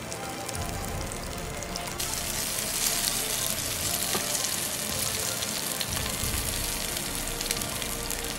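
Masala-coated basa fish pieces frying in oil on a tawa: a steady sizzle with small crackling pops, growing louder and brighter about two seconds in.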